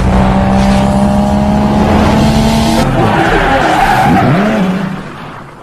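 Sports car engine sound with tyre skidding: a steady engine note over hiss, the pitch wavering about three seconds in, then fading out over the last second.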